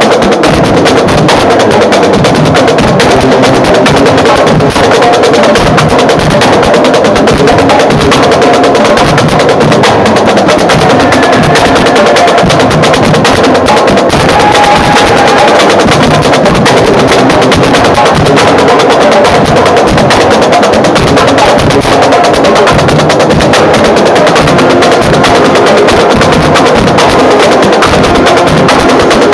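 High school marching band playing loudly, with the drums' rapid hits over sousaphones and other brass horns.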